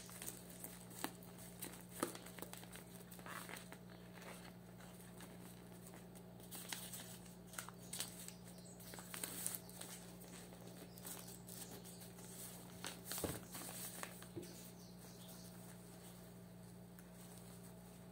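Soft rustling and crinkling of paper and jute twine as a wrapped gift is tied with a string bow, with small scattered clicks and a low steady hum underneath. A sharper knock comes about thirteen seconds in.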